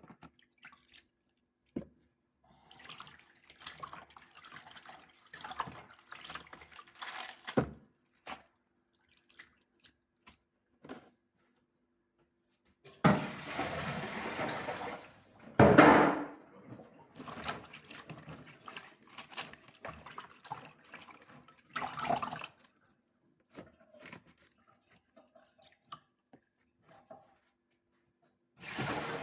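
Washed, wet chopped cabbage being put into a blender jar: water dripping and splashing, with rustling handling noise and occasional knocks. There is a louder splashing stretch about halfway through.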